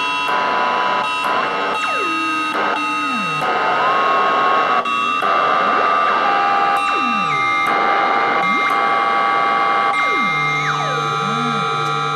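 Homemade electronic synthesizer box droning: several steady electronic tones over a hiss of noise, with pitches sweeping sharply downward and jumping to new notes as its knobs are turned. About ten and a half seconds in, a low steady drone joins.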